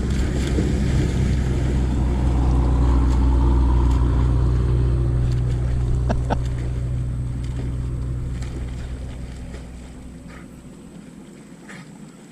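An engine running close by, steady and low, loudest three to four seconds in, then fading away over the last few seconds. A couple of sharp clicks come about six seconds in.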